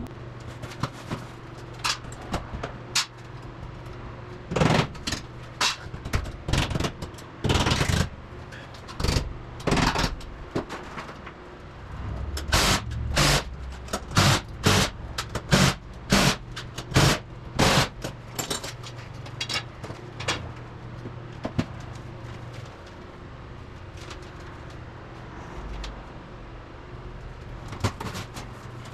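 Work noise from assembling a steel garage door: a run of sharp, irregular knocks and clanks as the door sections and hinges are handled and fastened. The hits come quickest and loudest around the middle, over a low steady hum.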